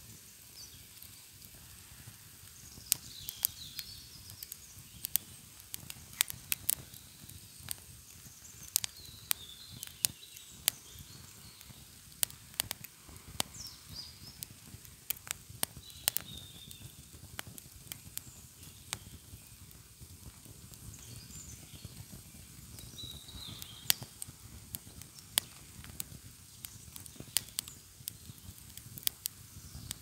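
Small wood fire of sticks in a fire pan crackling and popping irregularly, some pops sharp and loud. Faint high chirping calls now and then.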